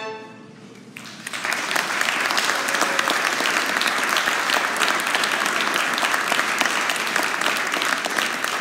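The last chord of a violin ensemble rings off, and about a second in the audience breaks into steady applause.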